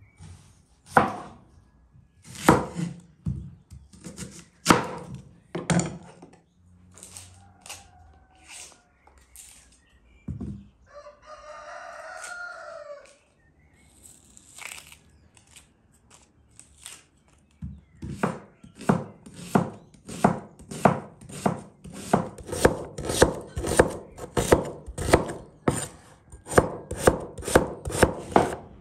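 Kitchen knife cutting onion on a wooden board: a few separate strikes at first, then quick, even slicing strokes, about three a second, through the last ten seconds or so. A rooster crows once near the middle.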